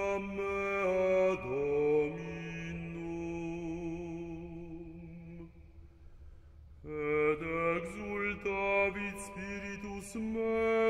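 Background music of slow sung chant, voices holding long notes and stepping between pitches. It fades out about six seconds in, then comes back.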